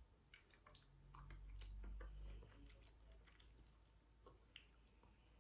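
Very faint small clicks and crackles of cooked crab shell being picked apart by hand, scattered irregularly.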